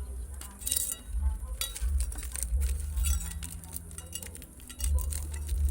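Wind buffeting the microphone in uneven gusts, with scattered light clicks and clinks.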